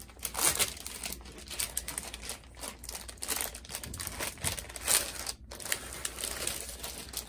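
Clear plastic bag crinkling as hands work it open and pull a pre-printed cross-stitch kit out of it, in irregular rustling bursts with a short lull about five seconds in.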